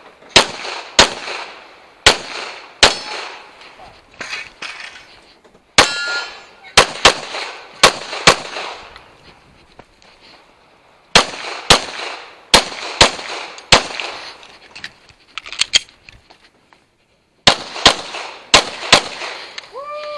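Semi-automatic pistol shots fired in quick pairs about half a second apart, in strings broken by pauses of a second or two while the shooter moves between positions. A brief ringing follows one shot about six seconds in, and the firing stops about a second before the end.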